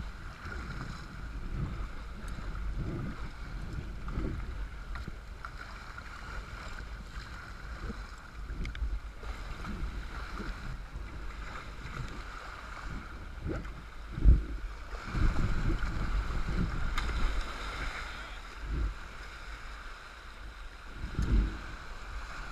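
Wind buffeting the microphone over water sloshing and paddle splashes as a sea kayak is paddled through choppy tidal water. Two louder low thumps stand out, one about two-thirds of the way through and one near the end.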